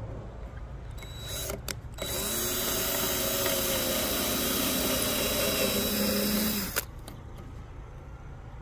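Cordless drill with a 5/32-inch bit boring a pilot hole into a wooden post: two short bursts about a second and a half in, then a steady run of almost five seconds that stops abruptly near the end.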